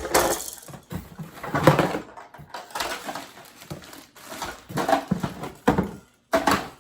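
Plastic toy parts and packaging being pulled out of a cardboard box: an irregular run of rustles and knocks, loudest about two seconds in.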